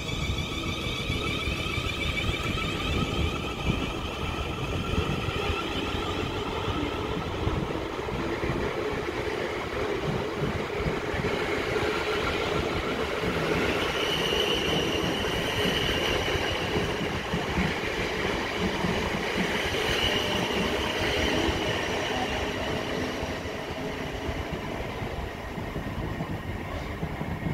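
Class 450 Siemens Desiro electric multiple unit pulling out, its traction motors whining and rising in pitch as it accelerates. The coaches then roll past with steady wheel-on-rail clatter, fading a little near the end as the train pulls away.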